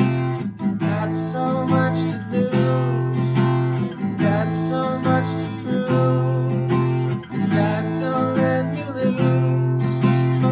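Acoustic guitar strummed in a steady rhythm, the chords changing every second or two.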